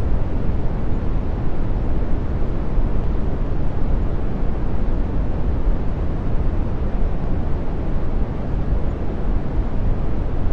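Brown noise: a deep, soft, steady random noise with most of its weight in the low end and little up top, holding an even level throughout.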